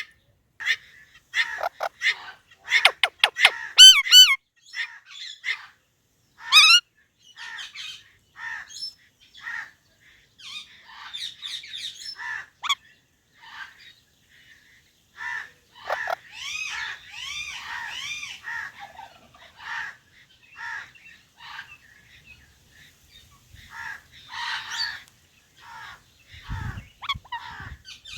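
Indian ringneck parrots calling: a string of short, sharp squawks and chirps, loudest about three to four seconds in, with a denser run of chattering calls in the middle.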